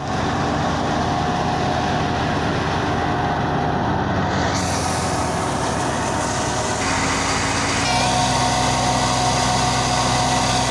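Tractor-driven wheat thresher running at working speed: a continuous mechanical drone with a steady whine over it. The tone shifts slightly a few times.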